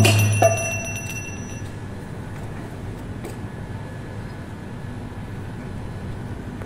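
Steady low electrical hum with faint room noise. A short knock with a brief ringing tone comes about half a second in.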